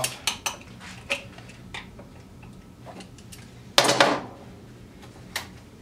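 Metal ticks and clicks of a lathe's cast-iron steady rest being handled as it is taken off the workpiece and its hinged top opened, with one louder clatter about four seconds in.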